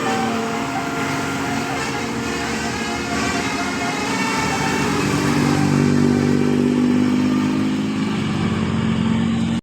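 Bus engine running and revving up, with the last note of a telolet basuri musical horn fading out in the first second.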